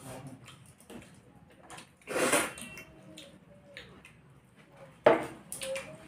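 Eating sounds at a table: fingers mixing and squishing rice with curry on steel plates, with small clicks of steel dishware. Two louder noisy bursts stand out, one about two seconds in and a sharper, louder one about five seconds in.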